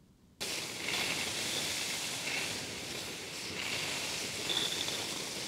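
A steady rushing hiss, strongest in the high range, that starts suddenly about half a second in.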